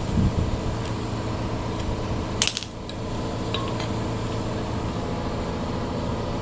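Small metal parts and tools clinking, with one sharp metallic clank about two and a half seconds in and a few lighter ticks after it, over a steady mechanical hum.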